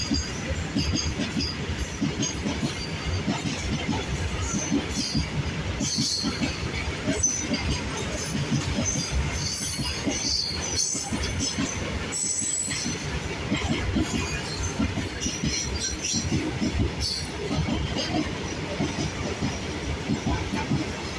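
Goods train hauled by a WAG-9 electric locomotive rolling along the track, a steady rumble of wagon wheels with scattered short high wheel squeals.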